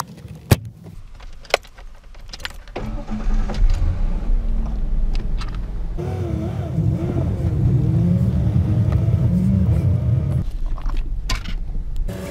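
Pickup truck heard from inside the cab: a few clicks and keys jangling early on, then the engine runs. From about halfway it is driving, with the engine's pitch rising and falling.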